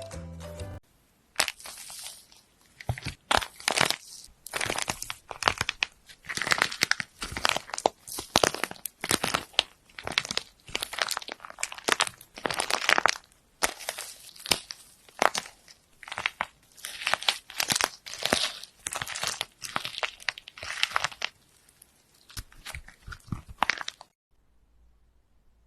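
Crunchy slime being squeezed and pressed by hand: irregular crackling and crinkling in quick clusters for over twenty seconds, stopping suddenly near the end.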